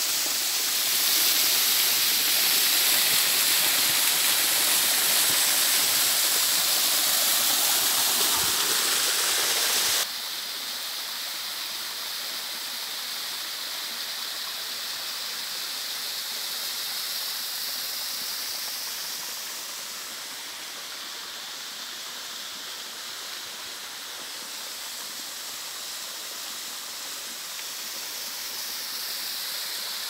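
Small waterfall falling into a rock pool: a steady rush of water that drops suddenly to a quieter level about ten seconds in.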